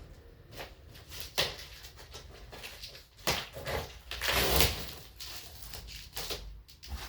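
Cardboard box and packaging being handled: scattered knocks and scrapes, with a longer scraping, rustling noise about four seconds in.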